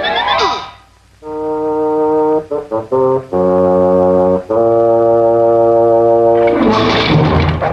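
Orchestral cartoon score. A falling glide fades out, and after a short pause a brass section plays loud held chords, broken by a few short stabbed notes, with a noisy crash near the end.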